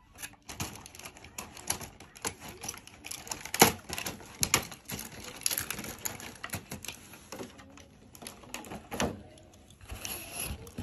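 Irregular clicks and clacks of small die-cast toy trains being picked up, knocked together and set down by hand.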